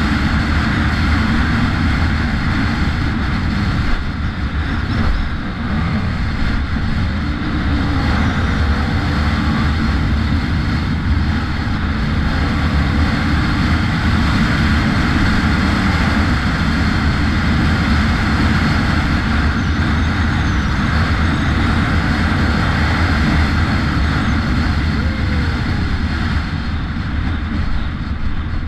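Enduro dirt bike's engine running steadily at speed on a gravel road, heard from a camera mounted on the bike, with wind noise on the microphone.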